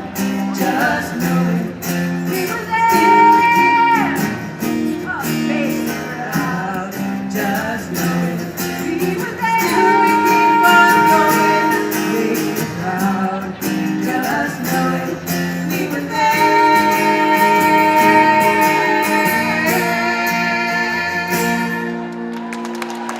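A woman singing to a strummed acoustic guitar, holding long notes. Near the end the song stops and applause starts.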